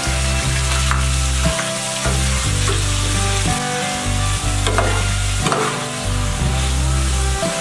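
Raw chicken pieces sizzling and frying in a hot square grill pan with garlic, stirred and scraped around with a metal spatula and ladle, with a few sharper scrapes and clinks of metal on the pan.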